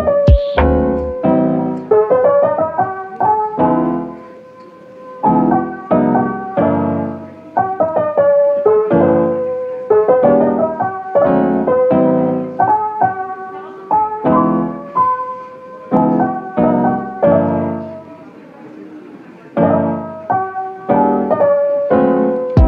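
Background music played on piano, a melody of struck notes in short phrases with a couple of brief lulls.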